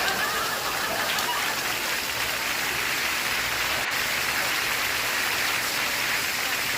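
Steady rain falling, an even rushing patter.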